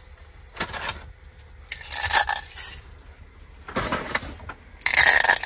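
Dried tagliatelle nests crackling as they are crumbled by hand, the broken pieces falling from a cardboard box into a ceramic bowl, in four short bouts.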